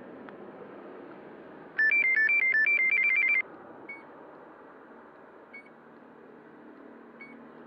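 An electronic device plays a short beeping melody, alternating between two pitches and then a quick run of notes, for about a second and a half. Afterwards it gives single short beeps about every second and a half.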